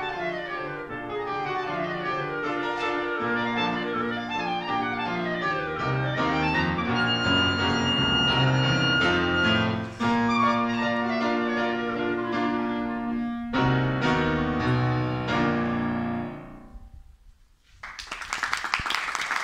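Clarinet and piano duo playing the closing bars of a classical piece: fast descending runs and long held clarinet notes over piano chords, ending in a few final chords that die away. Audience applause starts near the end.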